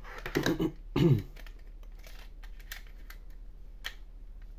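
Plastic clicking and rattling of a MiniDisc in its clear case and a Sony MZ-NH1 Hi-MD Walkman being handled, loudest in the first second or so with a short scrape about a second in. After that come a few single clicks.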